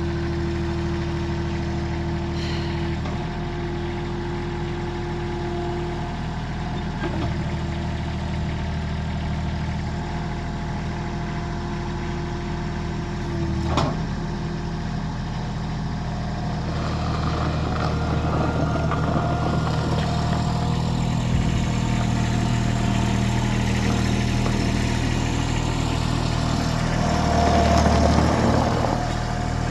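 Bobcat 553 skid-steer loader's diesel engine running steadily. There is a single sharp knock about 14 seconds in, and the engine grows louder from about 17 seconds, loudest near the end.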